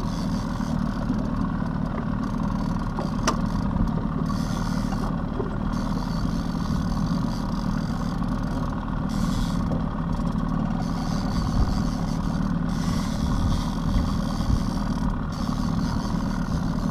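Steady low rumble of a fishing boat under way, its outboard motor running at trolling speed, with wind buffeting the microphone.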